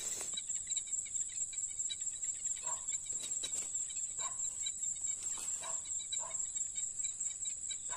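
Night insects, crickets, chirring steadily at a high pitch, with about five short, lower calls from another animal every second or so.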